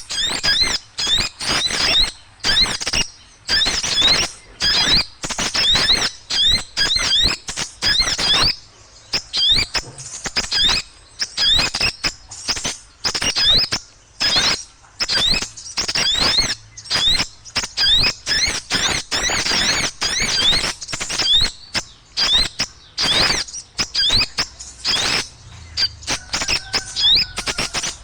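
Small birds chattering noisily: rapid high rising chirps mixed with harsh scolding calls, several a second, thinning out briefly about nine seconds in. It is a bird-lure recording of noisy small birds.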